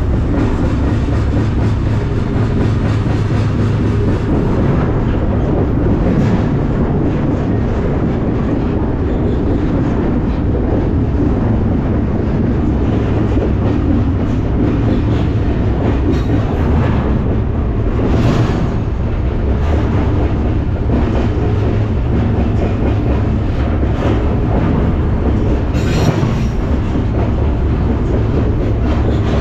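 Freight train rolling, heard from aboard one of its cars: a loud, steady rumble of wheels on rail, with a few brief sharper sounds about two-thirds of the way through and again near the end.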